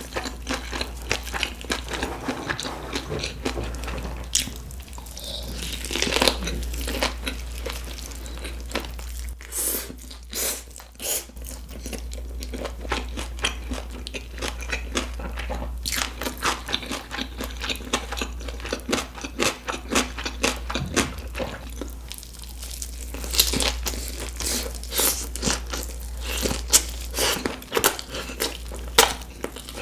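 Close-miked eating sounds: gimbap rolls being bitten and chewed, with many crunchy, wet mouth clicks and crackles in an irregular run.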